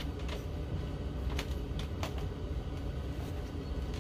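Steady low hum with a few faint, short ticks and rustles as a hank of yarn with a paper tag is twisted by hand.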